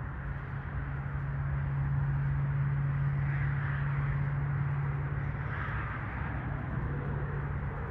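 A steady, low engine drone with a constant hum and a rushing haze above it, swelling slightly in the middle.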